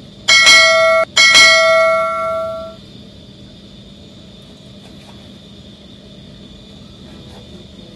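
Notification-bell sound effect from a subscribe-button animation: two bright bell dings in quick succession, the first cut off short and the second ringing out for about a second and a half before fading.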